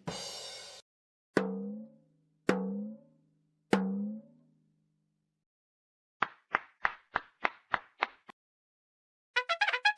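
A string of short percussive comedy sound effects. A brief hiss comes first, then three sharp pitched hits about a second apart that each ring for a moment at a low pitch. After a gap come about eight quick evenly spaced knocks, and near the end a fast run of clicks starts.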